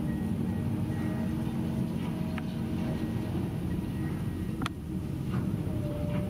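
High-reach demolition excavator running steadily, its diesel engine and hydraulics giving a low rumble, with a few sharp cracks as its crusher jaws break up concrete. The loudest crack comes about three-quarters of the way through.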